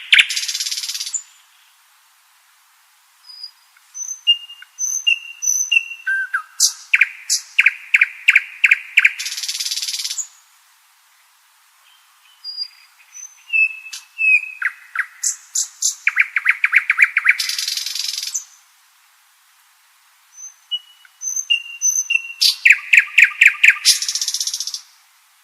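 Common nightingale singing: three song phrases separated by pauses of about two seconds. Each opens with a few spaced whistled notes, then runs into a fast series of loud repeated notes and ends in a harsh buzzing trill.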